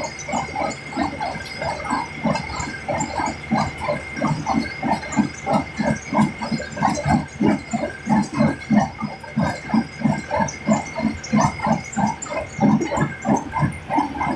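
Kubota HB135 small square baler running off a tractor's PTO while rice straw is forked into it: its plunger packs the straw in a steady rhythm of about four strokes a second, over a steady high whine and the low running of the tractor.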